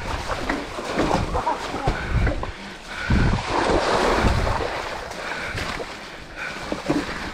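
Specialized Turbo Levo electric mountain bike riding down a wet, muddy forest trail: wind buffeting the microphone and tyres rolling through mud, with frequent short knocks and rattles from the bike over bumps. The rush is loudest about three to four and a half seconds in.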